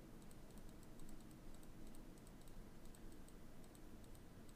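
Faint computer mouse clicks repeated several times a second, a button being clicked over and over.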